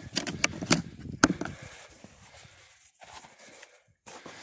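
A hard plastic box being handled: several sharp clicks and knocks of plastic in the first second or so, the loudest a knock about a second in, then faint rustling.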